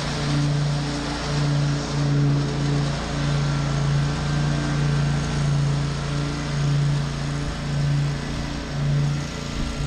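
Zero-turn riding mower's engine running steadily under load while mowing, with a regular throb about once a second.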